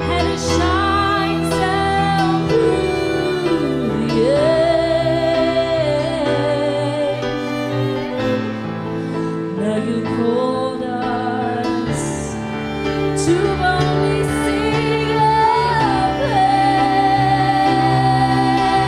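Slow worship music: sustained chords under a melody with vibrato that glides between notes and settles on a long held note near the end.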